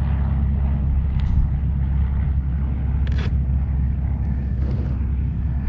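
A steady low rumble and hum with no change in level, with a couple of faint short knocks about one and three seconds in.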